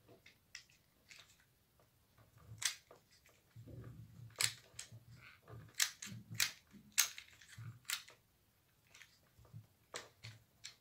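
Hot glue gun worked over burlap fabric: a scattering of sharp clicks and snaps, most of them between about two and a half and seven and a half seconds in, with soft handling rustle between them.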